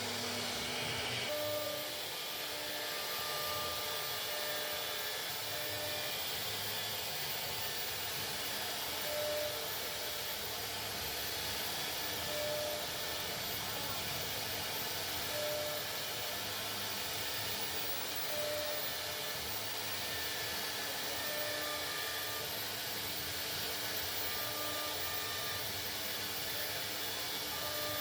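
CNC router spindle running steadily, cutting plastic with an even hissing whine.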